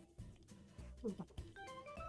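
Background music: a light tune of bell-like pitched notes over a repeating bass.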